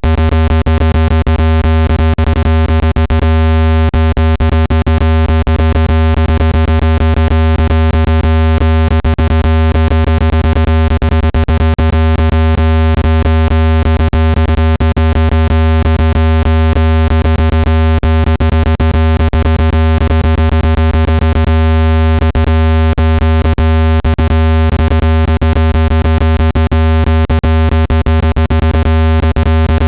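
Speaker water-ejection tone: a loud, steady, low electronic buzzing tone with many overtones, crossed by frequent small clicks. It is played at full volume so the vibration pushes trapped water droplets out of a phone speaker.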